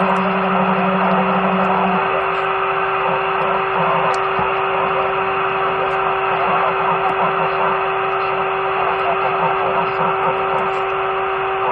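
CB radio receiver static from the rig's speaker: a steady hiss with a steady hum tone running through it. A second, lower hum tone drops out about two seconds in.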